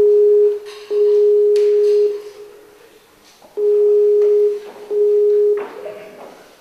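Skype outgoing-call ringing tone, sounding while the call waits to be answered: a steady mid-pitched tone that rings in pairs, two double rings about three and a half seconds apart.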